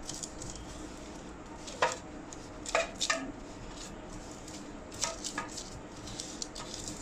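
Silicone pastry brush spreading oil over baking paper in a metal baking tin: soft brushing, with a few light clicks and knocks of the brush and tin about two, three and five seconds in.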